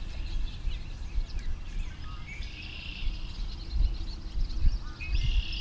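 Birds chirping and calling over a steady low rumble, the calls coming in a cluster around the middle and again near the end.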